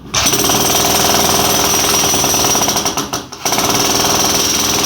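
Jackhammer chipping into a concrete wall, hammering in a rapid steady run. It stops briefly about three seconds in, then starts again.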